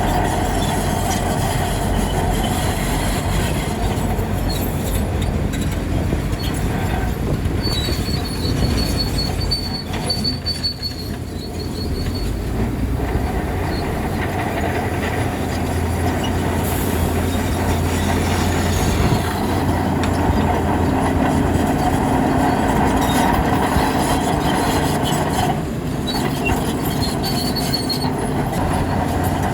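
Crawler bulldozer working under load: its diesel engine runs with a steady low rumble while the steel tracks clank and squeal, with a thin high-pitched squeal rising out of the noise a third of the way in and again near the end.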